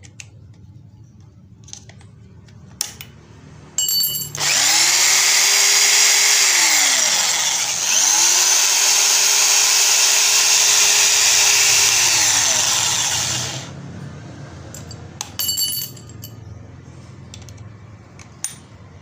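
Small corded electric drill motor run twice in a row, a few seconds each, speeding up to a steady high whine and winding down after each trigger release. Short brief bursts come just before the first run and again a couple of seconds after the second.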